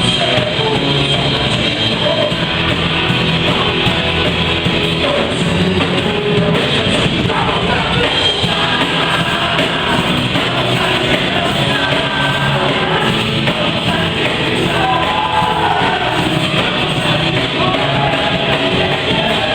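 Live worship band playing an upbeat rock-style song: electric guitar and drum kit with singing over them.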